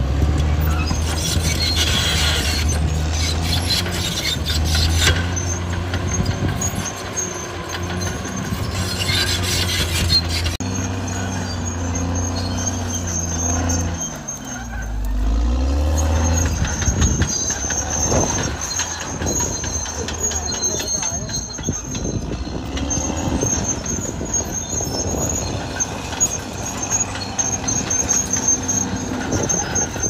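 Caterpillar D6R XL bulldozer's diesel engine running steadily under load, with its steel tracks squealing in bursts. About halfway through, the engine pitch drops and climbs back up.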